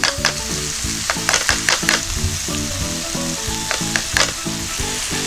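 Chicken, onion and mushrooms sizzling in a frying pan while ketchup is stirred in with a spoon, with scattered clicks and scrapes of the utensil on the pan. The ketchup is being fried to cook off its sourness. Light background music plays underneath.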